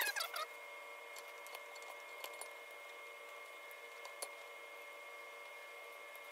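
A brief squeak right at the start, then a few faint clicks and taps, as hands handle and work on a powder-coated brake caliper. A faint steady hum runs underneath.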